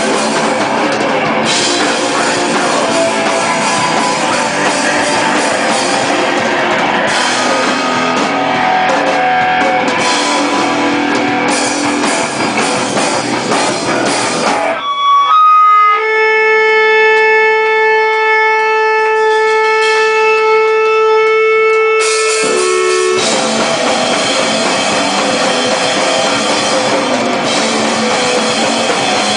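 Hardcore rock band playing live, loud distorted guitars and drum kit. About halfway the band drops out and a single guitar note is held ringing alone for about seven seconds, then the full band comes back in.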